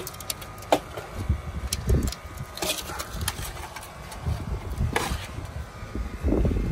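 Handling noise: a melted sheet of material and the burnt debris around a cable being moved by hand, giving several sharp clicks and crackles over low irregular rumbling. A faint steady machine hum runs underneath.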